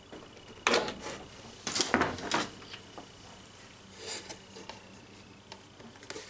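Hard plastic parts knocking and rubbing as a fish finder is lifted off its gimbal mount and the mount bracket is handled on a plastic box. There are sharp clacks a little under a second in, a cluster of louder ones around two seconds, then lighter taps.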